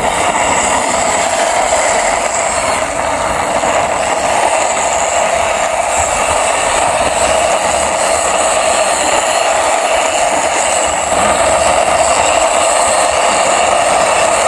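Plastic wheels of a toy ice-cream van rolling on concrete as it is pushed by hand: a steady grinding noise, slightly louder near the end.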